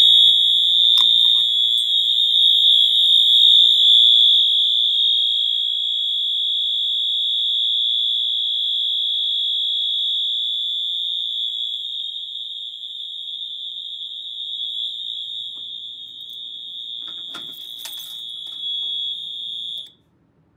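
Wheelock ELMTSR Eluxa multitone horn strobe sounding one continuous, steady, high-pitched horn tone, much like a standard Wheelock MT horn. The tone cuts off abruptly near the end.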